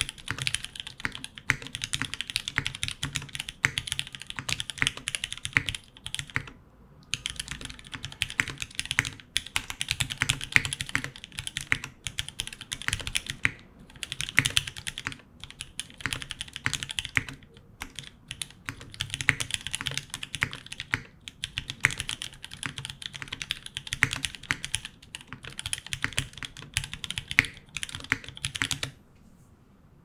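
Fast, steady typing on a top-mounted KFE CE anodised-aluminium mechanical keyboard with a polycarbonate plate, Gateron KS3 black switches, GMK ABS keycaps and the case foam removed: a rapid run of key clacks with a few short pauses. The typing stops about a second before the end.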